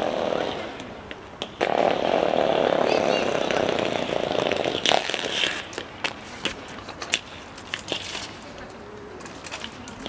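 A loud, steady motor noise that cuts out for about a second near the start, comes back abruptly and stops about halfway through, followed by scattered light clicks.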